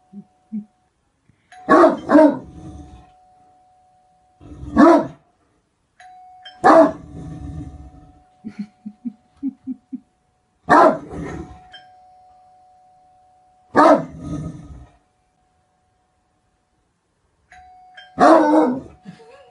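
Great Dane barking: deep single barks several seconds apart, some in quick pairs, with a string of short low huffs about two-thirds of the way through. A faint steady tone sounds between the barks.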